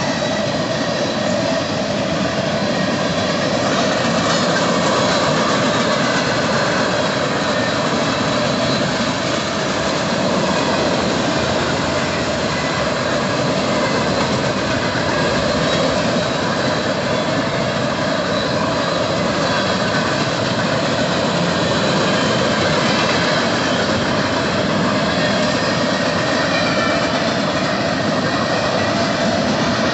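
Freight train cars rolling past: a steady, unbroken noise of steel wheels running on rail.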